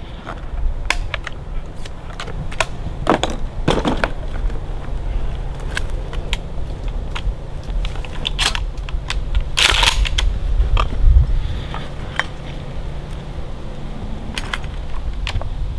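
Scattered crunches, clicks and scrapes of footsteps and handling on a dry, leaf-littered dirt floor, over a steady low rumble.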